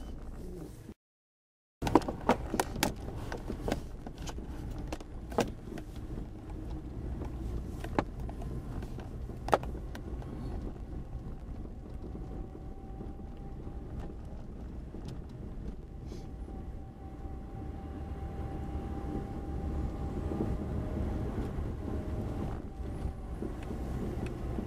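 Cabin noise of a vehicle driving on an unsealed sandy track: a steady low rumble from engine and tyres, with sharp rattles and knocks scattered mostly through the first ten seconds and a faint steady whine in the second half.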